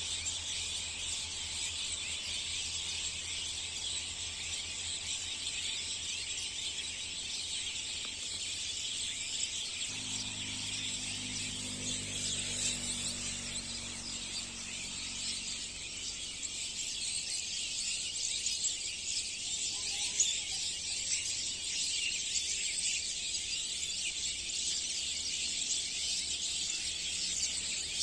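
Many small birds chirping and chattering at once in a continuous, dense high-pitched chorus. A faint low drone sits under it for a few seconds from about ten seconds in.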